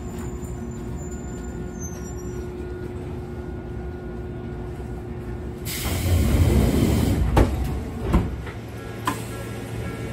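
Electric commuter train standing at a station with a steady hum. About six seconds in comes a loud hiss of compressed air, then two thuds as the pneumatic sliding doors close.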